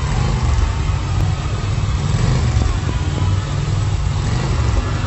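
Large arena crowd cheering, a dense steady roar with a few rising and falling cries above it.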